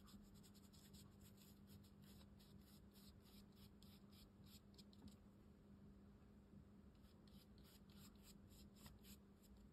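Faint scratchy strokes of a round watercolour brush scrubbing paint onto rough Khadi cotton rag paper, in quick runs of strokes, pausing for about two seconds in the middle before starting again.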